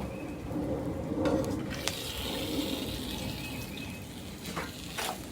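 Fish deep-frying in a pot of hot oil over a fire pit: a steady bubbling sizzle with scattered sharp pops.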